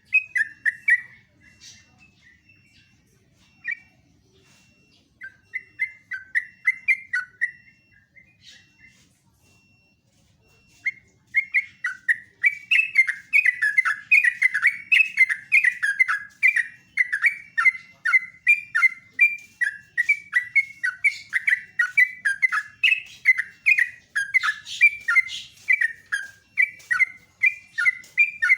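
Yellow-vented bulbul (trucukan) singing: a few short warbling phrases with pauses, then from about eleven seconds in a long, unbroken run of quick chattering notes, the continuous 'ngeropel' string that keepers prize.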